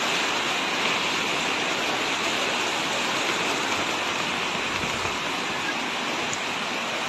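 Fast-flowing floodwater rushing, a steady, even noise with no break.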